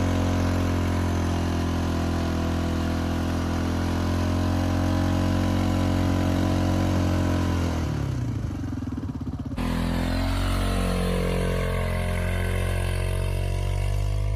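Vehicle engine running steadily under load during snow clearing; about eight seconds in its pitch sinks and it falls away, then the sound cuts abruptly to a different engine sound with shifting pitch.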